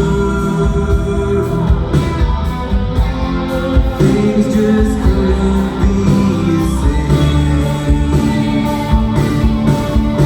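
A live band playing a slow rock song, with a singer holding long notes over guitar and bass.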